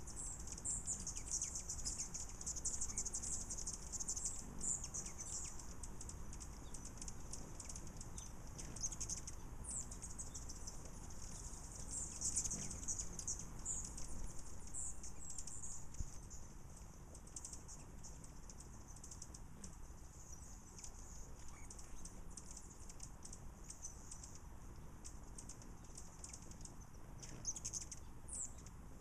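Many hummingbirds chattering: a dense stream of short, very high-pitched tweets and squeaks, fainter after about sixteen seconds.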